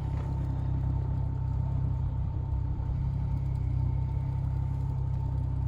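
Boat motor running steadily at low speed, about 5 mph, a constant low drone with a faint thin whine above it.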